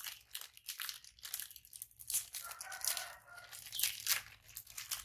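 Plastic snack wrapper crinkling and tearing as it is worked open by hand, a run of short, sharp crackles.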